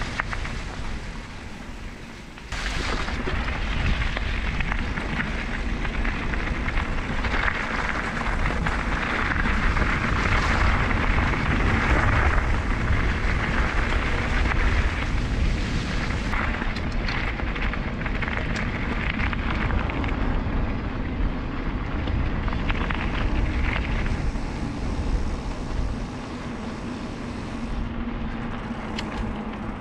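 Mountain bike riding down a rough trail: a steady rumble of tyres on the ground and rattle of the bike, with wind noise on the action camera's microphone. It gets much louder about two and a half seconds in.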